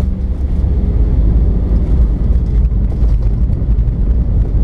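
Cabin noise of an Airbus A319 touching down and rolling out on the runway: a loud, steady low rumble of engines, airflow and wheels as the ground spoilers go up.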